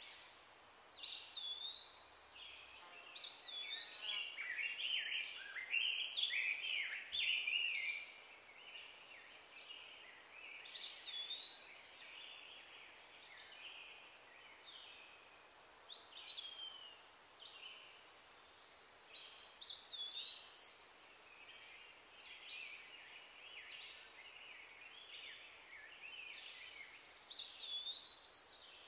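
Wild birds calling and singing: a short whistled phrase that sweeps up and then settles repeats every few seconds, with a busier stretch of several overlapping calls a few seconds in.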